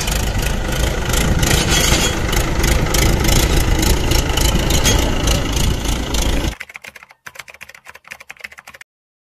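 Diesel tractor engine running as it pulls a tine cultivator through dry, stony soil. About six and a half seconds in, it cuts off to a quieter run of clicks, which stops short of the end.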